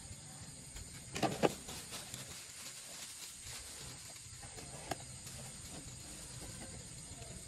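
A few sharp clattering knocks about a second in, another near five seconds, as a kitchen knife is put down into a plastic colander, then soft rustling of plastic bags being handled. Steady high chirring of night insects, likely crickets, underneath.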